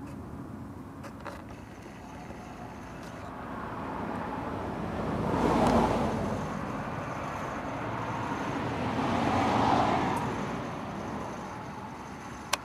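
Road traffic passing: two vehicles go by, each a slow rise and fall of tyre and engine noise, the first peaking about six seconds in and the second near ten seconds. A short click comes near the end.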